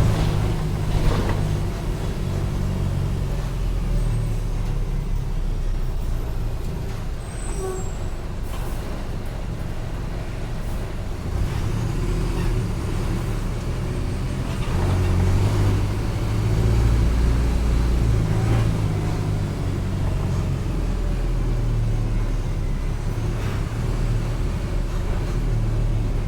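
Mercedes-Benz OF-1722M bus's diesel engine running under way, its low rumble swelling and easing as the bus speeds up and slows, with a few brief sharp noises over it.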